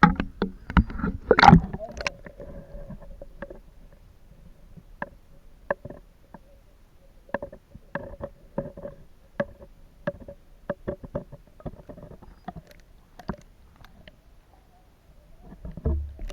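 Irregular sharp clicks and knocks, a cluster of loud ones in the first two seconds and then scattered taps, over a faint steady hum.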